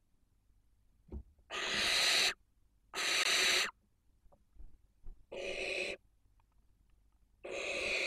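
Barn owls in the nest box giving four harsh, hissing screeches, each under a second long.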